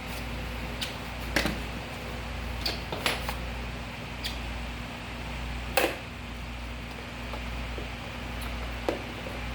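Scattered light knocks and clicks from things being handled, about seven over the stretch with the loudest about six seconds in, over a steady low hum.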